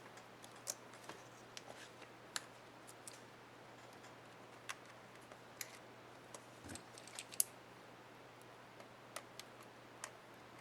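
Irregular small plastic clicks and ticks of a laptop keycap and its retainer clips being handled and snapped into place on an HP ENVY 15 keyboard, with a faint steady hum underneath.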